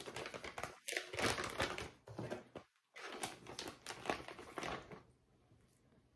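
Plastic zip-top bag crinkling and rustling as gloved hands in thin plastic gloves open it and reach inside. The crinkling stops about five seconds in.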